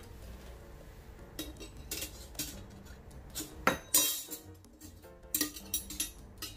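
Stainless steel cooking utensils and serving spoons clinking together as they are laid into a kitchen drawer: a series of light metallic clinks, loudest about four seconds in.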